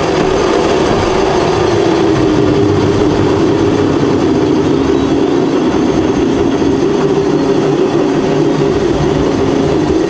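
Ghost-train ride car rolling along its track through the dark ride: a steady, loud rail rumble with a continuous drone.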